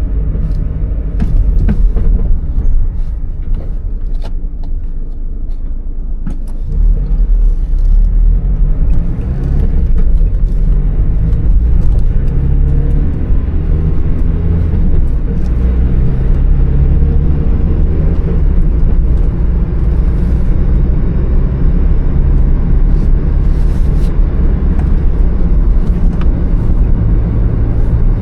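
A car driving, with engine drone and road rumble whose pitch slowly rises and falls as the engine speed changes.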